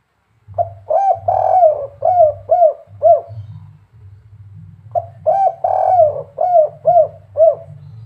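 Caged spotted dove cooing two full phrases, about four seconds apart. Each phrase has a couple of quick opening notes, one drawn-out coo, then three short 'kuk' end notes: the 'kuk 3' song pattern that dove keepers prize. A low steady hum runs beneath the calls.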